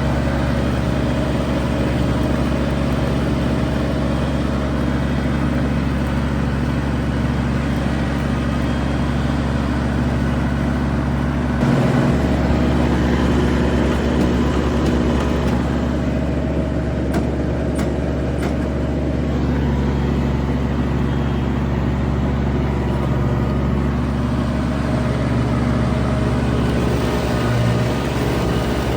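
Kubota G231 ride-on mower running steadily under load at high revs, just under 3,000 RPM, with its cutting deck and grass collection working through long wet grass.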